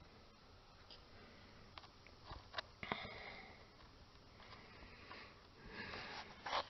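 Mostly quiet, with a few faint clicks and two short, breathy sniffs, one about three seconds in and one near the end.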